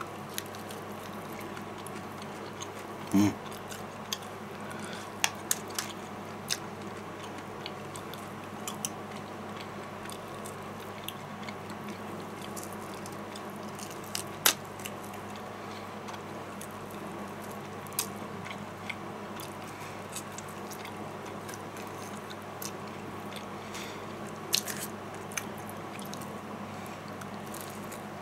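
Someone eating fried chicken by hand, biting and chewing meat off the bone, with scattered wet smacks and small crunchy clicks over a steady background hum. A short low hum of the voice comes about three seconds in.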